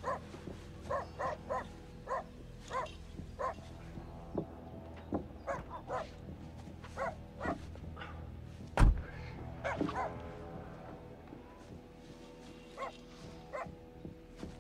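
A dog barking in short, repeated yelps, thinning out near the end, over music with a steady low drone. A single heavy thump about nine seconds in is the loudest sound.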